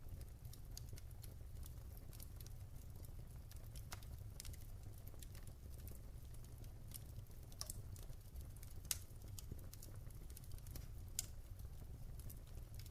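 Wood fire crackling in a fireplace: scattered small sharp pops over a low steady rumble, with a louder pop about nine seconds in and another about eleven seconds in.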